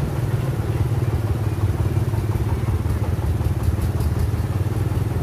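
Diesel engine running steadily with a fast, even chugging beat.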